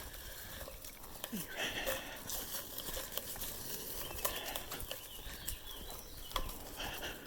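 Footsteps on a woodland path, with irregular crunching and crackling of leaf litter and twigs underfoot.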